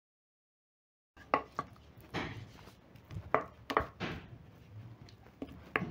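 Wooden spoon stirring soft, oiled bread dough in a glass mixing bowl, making a series of irregular knocks as it strikes the bowl. The sound starts about a second in, after a silent gap.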